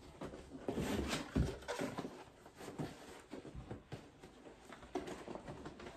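Large cardboard train-set box being handled and opened: irregular scraping and rubbing of card on card and on the shelf, with soft knocks, one heavier about a second and a half in, as a tightly packed box is worked open.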